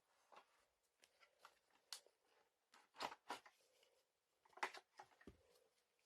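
Faint, scattered clicks and knocks of vacuum cleaner parts being handled during a belt change, a little louder around the middle and near the end.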